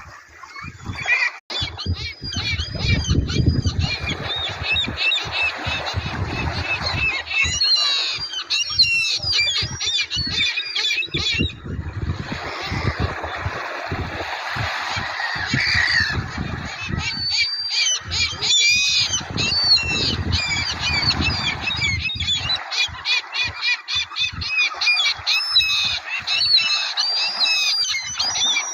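A flock of gulls calling, many short cries overlapping at once and growing busier about eight seconds in.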